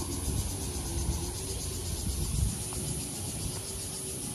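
A steady, high-pitched insect chorus shrilling in the trees, with a fast, even pulse. A low rumble runs underneath it.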